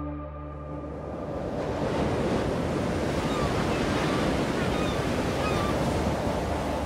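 Ocean surf and wind, a steady rushing wash of noise that swells in over the first couple of seconds as music fades out.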